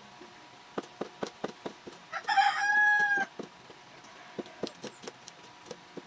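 A rooster crows once, a loud call of about a second that is the loudest sound here, between runs of quick knife chops on a wooden cutting board as red chilies are chopped with a bolo knife (itak).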